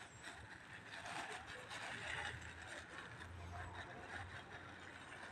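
Thin black plastic bag rustling and crinkling as a cat pushes its head into it to feed and a hand holds it open, with a low rumble underneath that swells about halfway through.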